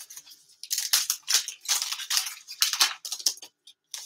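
Hockey trading cards handled by nitrile-gloved hands: a run of crisp rustling and crackling as the cards are slid apart, with a last short rustle near the end.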